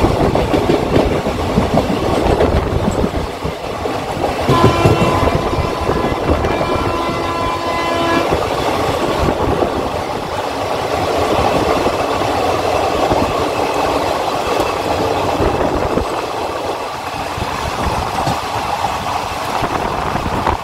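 Two Indian express trains running side by side at over 110 km/h, heard from an open coach doorway: loud wheel and rail clatter with wind rush. A train horn sounds for about three and a half seconds, starting about four and a half seconds in.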